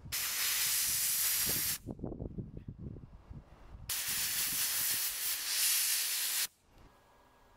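Soda blaster blasting a 3D-printer hotend with baking soda to strip burnt filament residue, in two hissing bursts of about two and three seconds. Quieter, uneven low-pitched noise fills the gap between them.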